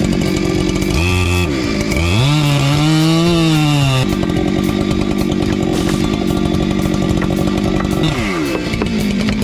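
Chainsaw running at cutting speed, revving up about two seconds in and dropping back near four seconds, with another fall in pitch near the end.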